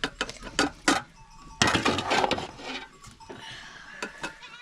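Clinks and knocks of cooking pots and utensils: several sharp clicks in the first second, then a louder noisy stretch lasting about a second.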